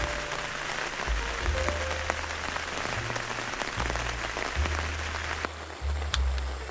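Background music with a steady bass line and a soft melody, over a dense hiss of rain that drops away abruptly about five and a half seconds in.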